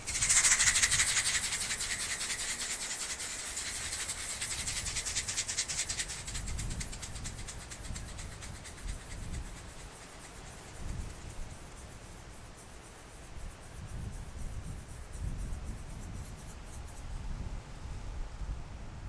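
A rapid, rattling flutter, a fast train of tiny pulses, standing in for a dragonfly's wings in flight. It starts suddenly and loud, fades after about six seconds, and stops shortly before the end.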